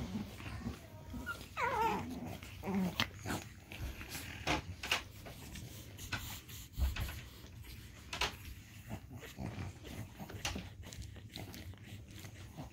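Pug puppies play-wrestling with their mother pug: small growls and a short whining call about two seconds in, over scattered scuffles and soft knocks of paws and bodies on the dog bed.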